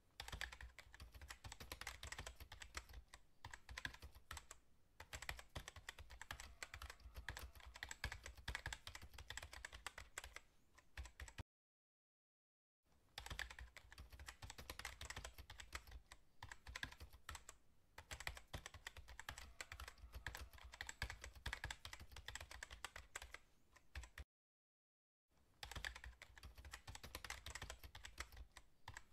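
Rapid, continuous keyboard typing clicks, a typing sound effect. They stop dead for about a second twice, about twelve seconds in and again near twenty-five seconds, then resume.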